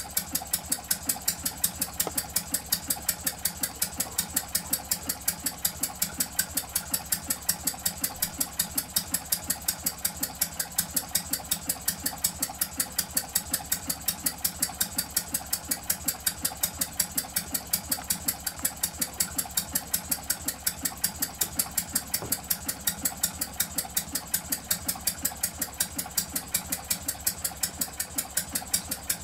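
Miniature twin-cylinder hot-bulb semi-diesel engine running on kerosene, firing in a fast, even, unbroken beat of sharp knocks.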